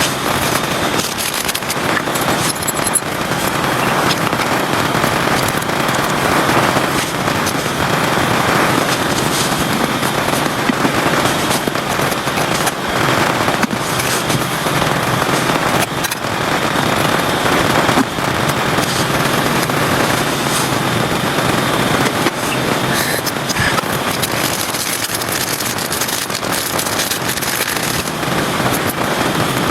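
Heavy rain falling steadily, a dense, even crackle of countless drops.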